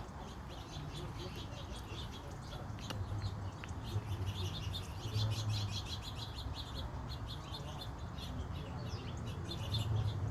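A small flock of fledgling birds chirping, many rapid short high chirps overlapping, thickest in the middle, over the steady hiss of a hose mister spraying water.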